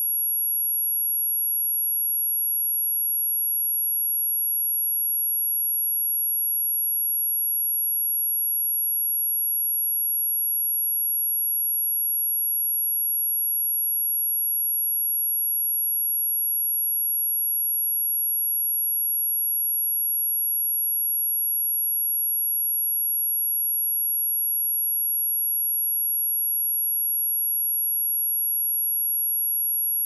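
A pure 11,311 Hz sine-wave test tone: a single very high, steady whistle held at constant pitch and level, used to test speakers or headphones and to shake dust and water out of a speaker.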